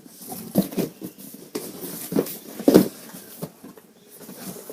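Packing tape on a cardboard box being cut and worked at by hand: a run of irregular scrapes, crinkles and knocks, the loudest a little before three seconds in.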